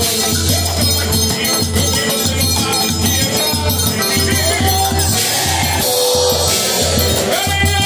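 A forró trio playing live through a PA: a steady, even bass-drum beat under sustained melody lines.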